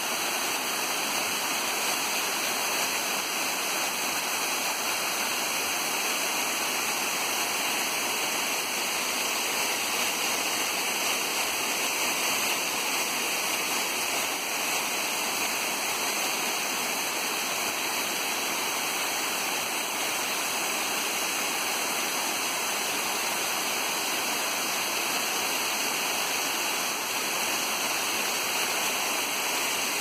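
Small waterfall of many thin streams spilling over a rocky step and splashing onto rocks and into a shallow pool: a steady rush of falling water, more hiss and splash than deep rumble.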